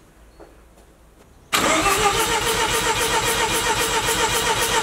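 Mazda RX-7 FC's 13B rotary engine cranked over on the starter for a compression test, fuel and ignition disabled so it does not fire, starting abruptly about a second and a half in with a quick, even pulsing as each rotor face comes up on compression.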